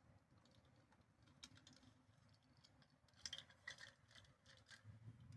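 Faint clicks and light rattling of a car door latch mechanism being handled, with a short cluster of sharper clicks about three seconds in.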